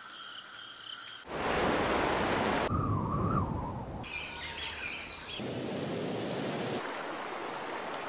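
A string of short nature ambience clips that cut abruptly from one to the next every second or two: mostly rushing water, loudest in the first half, with chirping bird calls about four seconds in.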